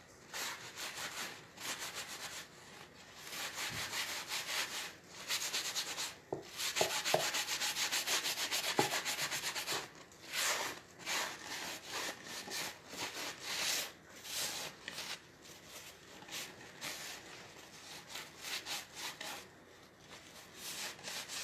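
A paper napkin rubbed by hand over a painted wooden shelf tier: quick scratchy rubbing strokes, louder for a few seconds near the middle.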